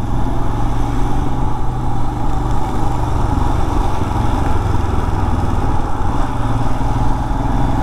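Royal Enfield motorcycle's engine running steadily while riding along, at a constant pace, with the rush of road and air noise underneath.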